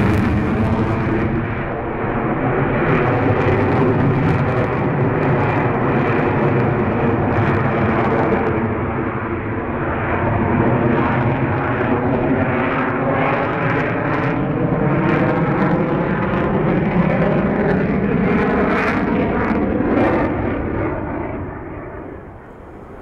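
A Sukhoi Su-30 fighter's twin jet engines run loud and continuously during a low, slow display manoeuvre, with a sweeping, phasing tone as the aircraft moves and frequent crackles. The sound fades over the last couple of seconds.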